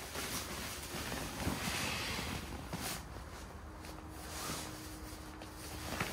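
Fabric rustling and crinkling as a stuffed bag is squeezed, folded and pressed down by hand, with a few soft handling knocks.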